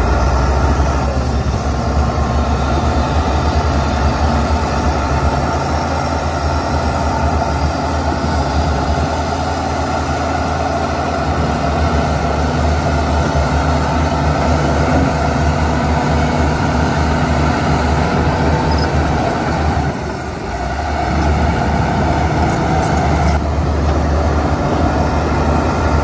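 Heavy diesel earthmoving machinery running loudly and steadily, with a deep rumble and a brief drop in level about twenty seconds in.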